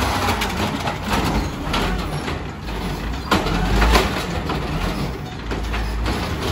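Peterbilt refuse truck running as its Amrep automated side-loader arm lifts a recycling cart and tips it over the hopper. A steady low engine rumble is joined by several sharp knocks and clanks, the loudest a little past three seconds in and at about four seconds.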